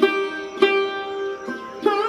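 Instrumental music played on a plucked string instrument: a few plucked notes, each ringing on.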